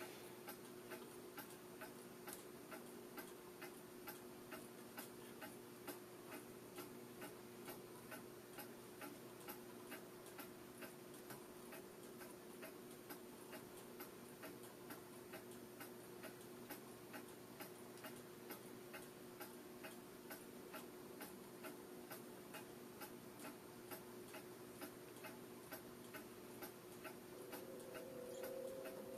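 Faint, regular ticking at about two ticks a second over a steady low hum, with a brief higher hum near the end.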